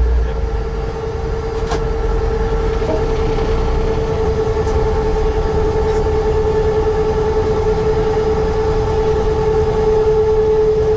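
Diesel railcar running along the line: a steady rumble with a steady whine that sinks very slightly in pitch.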